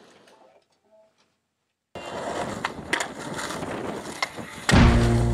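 Near silence for about two seconds, then a skateboard's wheels rolling on concrete with a few sharp clacks of the board. Loud music with a steady beat comes in near the end.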